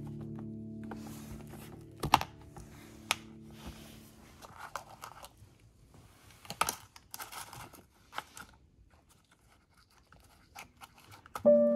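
Scattered crinkling, tearing and clicking handling noises, with a few sharp clicks, as background music fades out in the first second or two.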